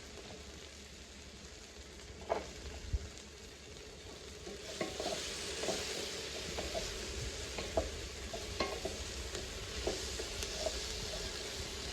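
Onions and taco seasoning sizzling in hot olive oil in a large pot while they are stirred, with a spoon knocking and scraping against the pot now and then. The sizzle grows louder about halfway through.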